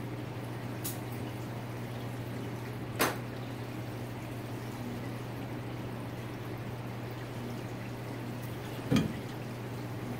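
Parts-washer pump running with a steady low hum and liquid trickling, with two sharp knocks, one about three seconds in and a louder one near the end.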